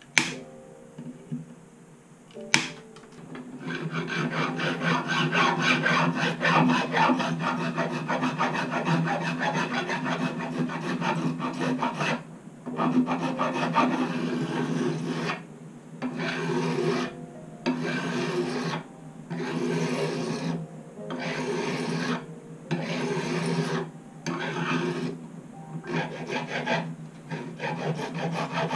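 A flat fret-leveling bar rasping back and forth along a guitar neck's stainless steel frets. It starts after a couple of knocks, runs as a steady gritty rasp, then about halfway through breaks into separate strokes roughly once a second with short pauses between them.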